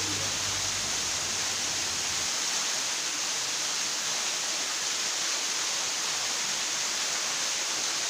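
Small waterfall falling steadily down a rock face: an even, unbroken rushing hiss.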